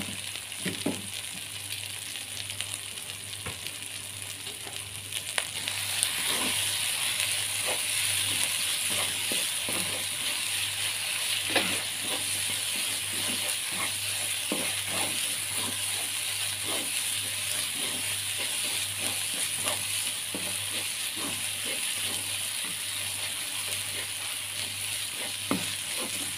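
Spice paste sizzling in hot oil in a nonstick wok, stirred and scraped with a spatula in short strokes, as the paste is fried until cooked. The sizzle gets louder about six seconds in.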